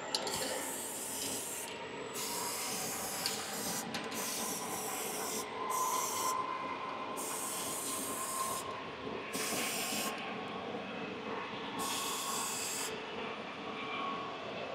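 Aerosol can of leak-check developer spraying in about eight short bursts of hiss, each up to a couple of seconds long, stopping and starting as it is worked over each joint of a freshly fitted engine bleed valve.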